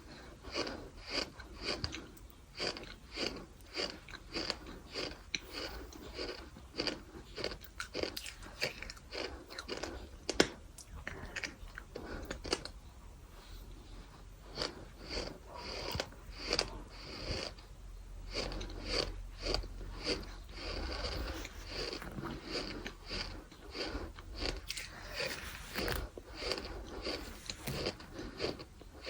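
Gritty crunching as bird sand is chewed, wet and dry: a steady run of short crunches, about two a second.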